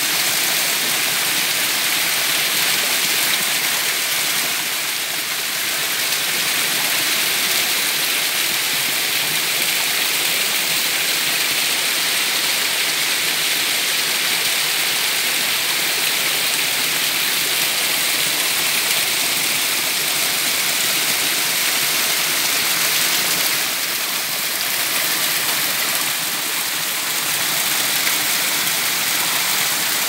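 Small waterfall pouring down a layered rock face: a steady rush of splashing water.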